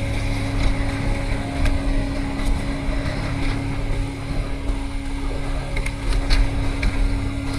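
A steady engine drone over a low rumble, holding one pitch throughout, with a few light knocks in the second half.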